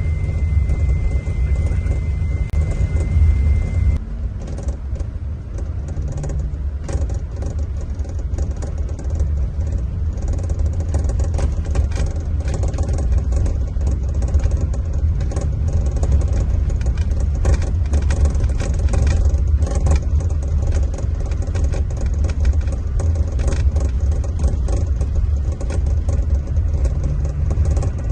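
Scania diesel engine of a Marcopolo Paradiso 1800 DD G7 double-decker coach running under way: a deep, steady drone with frequent small rattles and clicks over it. A faint high whine sounds for the first few seconds and then stops.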